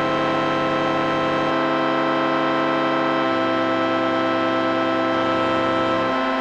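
Sustained synthesizer chord from a Doepfer polyphonic modular system played through a Soundforce Chorus 6 chorus module in manual mode. The chorus sweep wavers while its time, rate and depth sliders are moved by hand. The held notes shift in pitch about one and a half seconds in and again about three seconds in.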